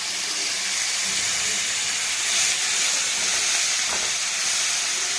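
Wet ground spice paste of tomato, garlic, ginger and green chilli frying in hot oil in a pan, a steady loud sizzle that swells a little near the middle.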